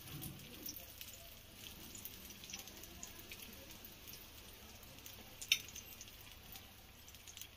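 Ghee sizzling faintly around litti balls roasting in an appe pan, with scattered small crackles and one sharper click about five and a half seconds in.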